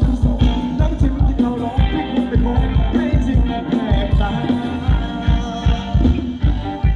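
Live band playing Thai ramwong dance music, with a steady, driving drum beat under the melody.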